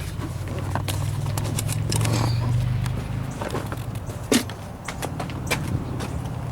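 Scattered clicks and knocks of handling and movement over a steady low hum, with one sharper knock a little past the middle.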